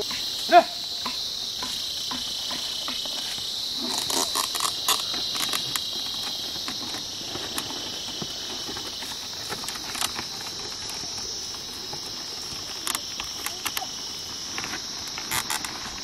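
A steady, high-pitched chorus of insects, with scattered light knocks and clicks and a short call near the start.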